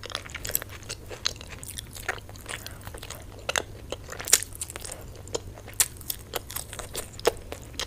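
Close-miked ASMR eating of a spicy mutton curry by hand: chewing and biting the meat, with irregular sharp, wet mouth clicks a few times a second.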